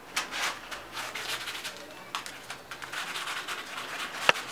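Scuffling and rustling as two Pomeranian puppies wrestle over a stuffed toy on the floor, in a run of short scratchy bursts, with one sharp click near the end.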